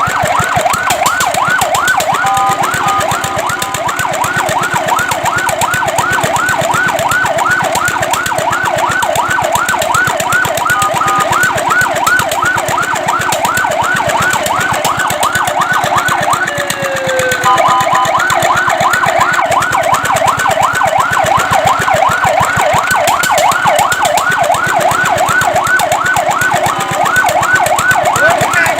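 Fire truck siren on a fast yelp: quick rising sweeps, about four a second, repeated steadily. A short steady two-note tone breaks in a few times.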